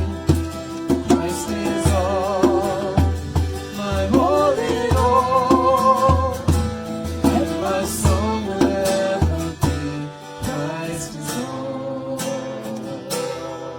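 Music: a song with a singing voice over guitar and a steady beat, fading out near the end.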